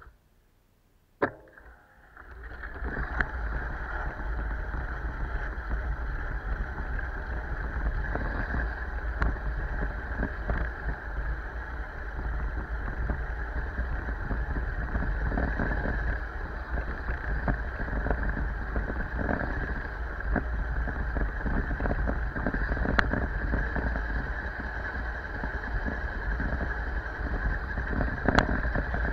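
Wind rushing over the camera microphone and tyre noise on asphalt as a bicycle gets rolling, starting about two seconds in after a single click and near silence; a few sharp clicks cut through the steady rush.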